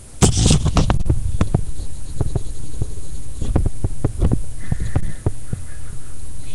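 Handling noise right on the microphone: a dull rumble with irregular knocks and ticks, starting with a strong knock.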